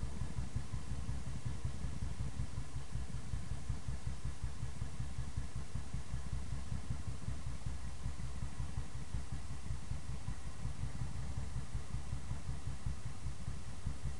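Royal Enfield Bullet's single-cylinder four-stroke engine idling with a steady, even thump.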